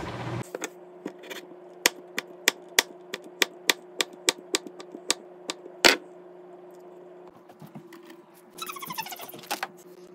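A knife chopping a hot dog on a cutting board: a run of sharp taps, about three a second for four seconds, ending in a louder knock, over a steady kitchen hum.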